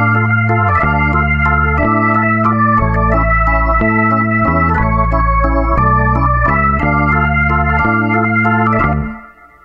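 Background music: sustained keyboard chords over a changing bass line, fading out near the end.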